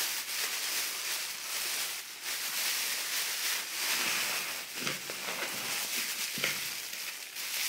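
Thin plastic carrier bags crinkling and rustling as they are scrunched and pushed into a plastic bottle, a dense crackle with sharper crackles throughout.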